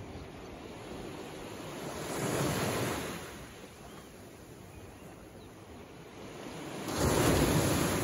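Small waves of a calm sea washing in on a rocky shore: two waves, one about two seconds in and a louder one arriving sharply near the end.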